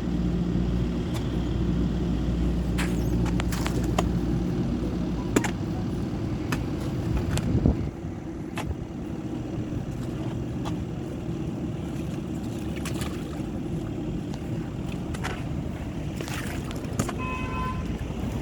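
A motor vehicle's engine running with a steady low rumble, with scattered clicks and knocks and a short pitched tone, like a beep or toot, near the end.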